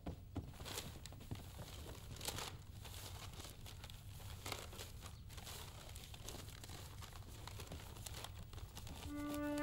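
Sheets of paper rustling and crinkling in irregular bursts as they are picked up and handled. A flute melody comes in near the end.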